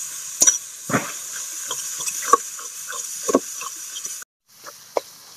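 Metal spatula scraping and knocking against a metal karai as a thick mash of fried brinjal and fish is stirred, with irregular strikes several times a second over a steady frying sizzle. About four seconds in the sizzle drops away abruptly, leaving fainter spatula knocks.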